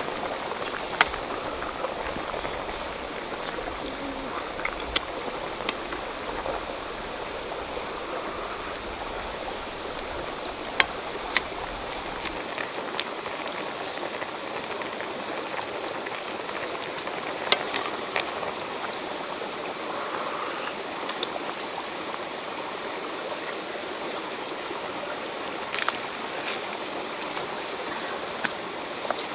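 Steady rush of a rocky forest stream mixed with a pot of soup bubbling at the boil, with scattered sharp clicks.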